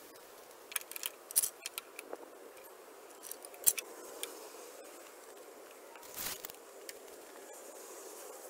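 Thin wooden stickers clacking as they are picked up and laid across a freshly milled walnut slab to stack it for drying: a quick run of sharp wooden clicks and knocks about a second in, a louder single knock near the middle, and a short scrape later.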